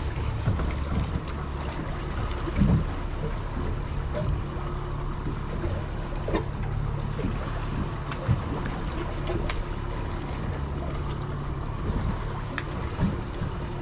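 Boat engines running at slow trolling speed, a steady low drone, with wind and water noise and a few light knocks.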